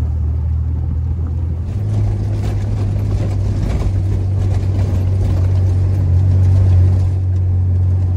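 Four-wheel drive's engine running under load on a soft sand track, heard from inside the cab: a steady low drone that steps up in pitch about two seconds in, with more rough tyre and body noise from then on.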